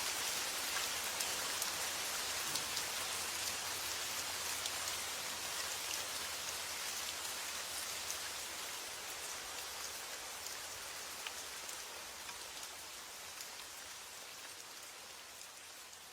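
Steady summer rain falling, a dense hiss with scattered individual drops ticking on a surface, fading out gradually over the whole stretch.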